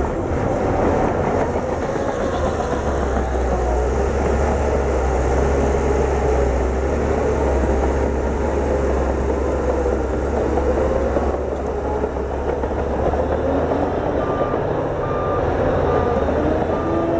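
Bulldozer's diesel engine running steadily with a deep low drone. In the last few seconds a reversing alarm beeps about once a second.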